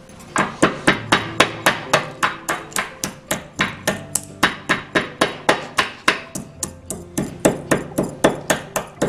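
Whole cloves, cardamom, black pepper and cinnamon being coarsely pounded with a pestle in a mortar: steady, even strikes about three to four a second.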